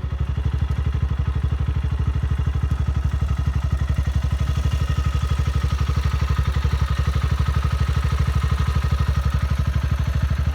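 Royal Enfield Himalayan 411's single-cylinder engine running steadily with a rapid, even thumping beat.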